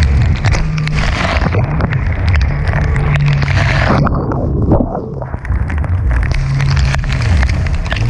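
Jet ski engine running hard, its pitch dipping and climbing again several times as the throttle eases and picks up over the waves. Heavy wind noise on the microphone goes with it, and rain and spray pelt the camera in a constant patter of sharp ticks. The hiss thins out for a moment about halfway through.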